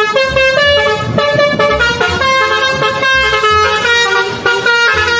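Music from a children's cartoon about a bus: a bouncy tune of short, horn-like notes stepping up and down over a steady beat.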